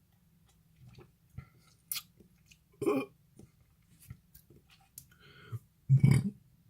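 Mouth and throat noises of a person sipping and swallowing sour lemon juice: small wet clicks and lip smacks, with a louder burst about three seconds in and the loudest one near the end.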